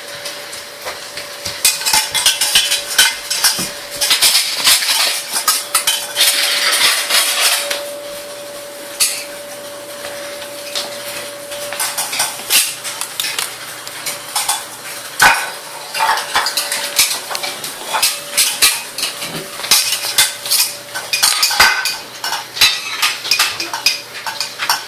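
Dishes and cutlery clattering: irregular clinks and knocks of plates and utensils, busiest in the first third and again near the end, over a steady faint hum.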